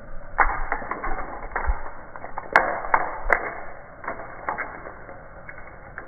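Dry leaves dropping and skittering onto stone pavement: an irregular run of crisp ticks and crackles, with the sharpest clicks a little past halfway.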